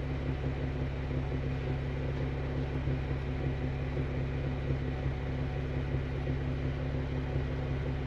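Vehicle engine idling: a steady, even low hum that does not change.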